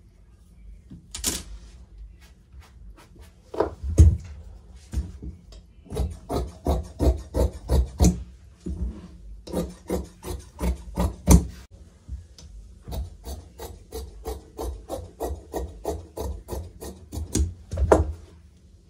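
Large tailor's shears cutting through blouse fabric on a table: a steady run of crisp snips, about three or four a second, pausing briefly midway. A knock on the table about four seconds in and another near the end.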